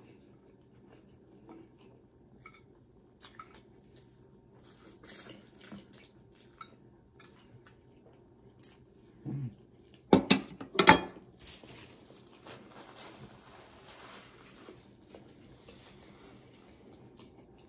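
Mouth sounds of a person eating noodles: faint clicks and wet chewing and smacking, with two loud short bursts about ten seconds in and a stretch of soft hissing noise after them.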